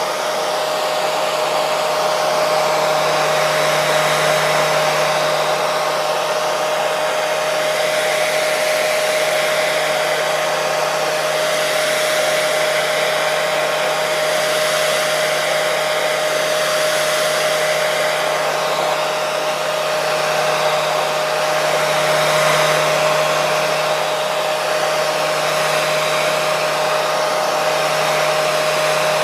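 Hair dryer running continuously: a steady rush of air with a constant whine held under it, swelling slightly now and then.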